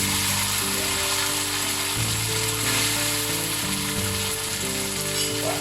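Flat rice noodles (kway teow) frying in hot oil, a steady sizzle, with background music of held notes underneath.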